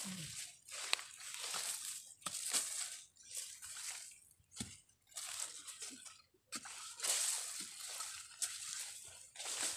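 A hand digging tool scraping and breaking into dry soil among sweet potato vines, with leaves rustling, in irregular bursts of crunching, plus a couple of sharp knocks.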